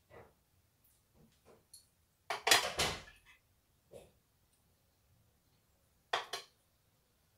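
Plates and cutlery clinking and clattering as they are handled on a kitchen counter: a cluster of sharp clatters about two and a half seconds in, another near the end, and softer taps in between.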